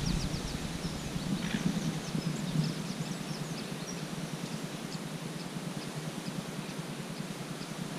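Lakeside outdoor ambience: a steady hiss of light wind with faint, scattered high bird chirps.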